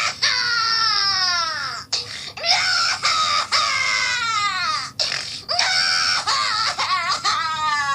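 Cartoon baby crying sound effect: a baby wailing in long cries, each sliding down in pitch, about four in a row with short breaks between them.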